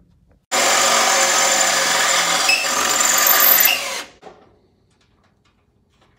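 Electric drill running steadily for about three and a half seconds, drilling a bolt hole through the battery hold-down bracket, then stopping abruptly.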